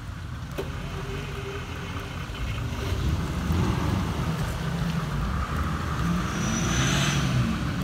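Off-road vehicle engine running under load in the mud, growing louder about three seconds in, with a short high-pitched whine near the end.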